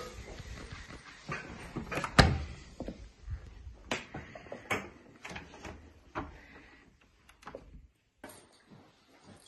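Scattered clicks and knocks of a door being handled and someone moving through a house, the sharpest knock about two seconds in; a doorknob is turned near the end.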